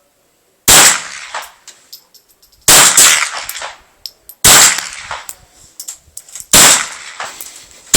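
Heckler & Koch 416 .22 LR rifle fired in single shots, five in all, roughly every two seconds, each crack trailing off over about a second.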